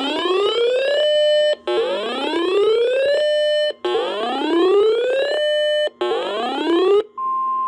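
Electronic whoop alarm: a rising sweep tone, each sweep climbing for about a second, holding briefly at the top and cutting off, repeated four times about two seconds apart. Near the end, a short steady beep.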